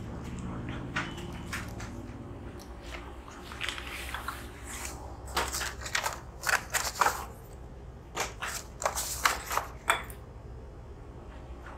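A run of short, sharp crackling, crinkling noises in two clusters, starting about four seconds in and ending near the tenth second, over a low steady room hum.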